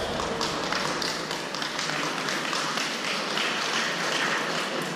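Audience applauding: many hands clapping at a steady level throughout.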